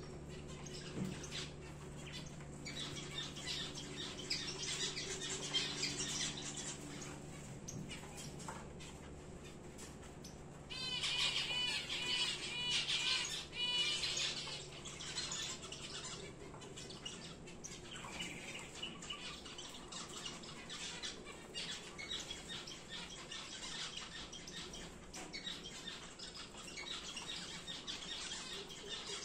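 Star finches in a cage chirping and calling on and off, with one bird singing a quick run of repeated, patterned notes for about three seconds midway.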